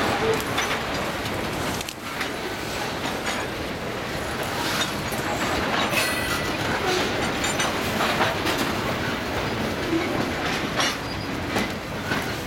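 Freight train tank cars rolling over a wooden trestle bridge: a steady rumble of wheels with repeated clicks over the rail joints and a brief wheel squeal about six seconds in. The sound eases slightly as the last car clears the bridge near the end.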